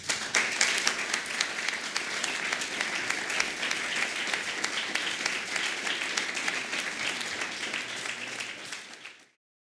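Audience applauding: a steady round of many hands clapping in a small hall, which cuts off suddenly near the end.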